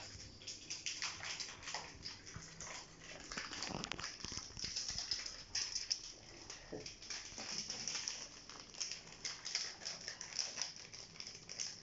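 Domestic cats meowing for their food: a few short calls among rustling and clicking.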